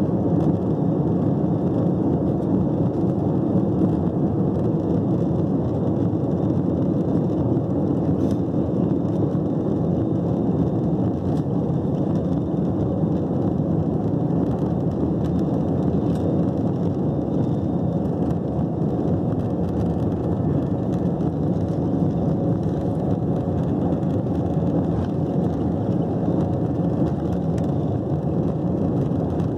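Steady low rumble inside the cabin of an Airbus A320-232 taxiing, heard from a seat over the wing: its IAE V2500 engines running at low taxi thrust, with no spool-up.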